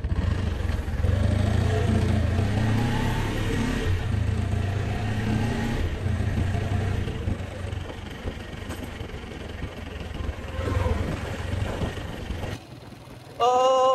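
Motorcycle engine running under way with wind on the microphone, its pitch rising and falling with the throttle. The sound drops away abruptly near the end.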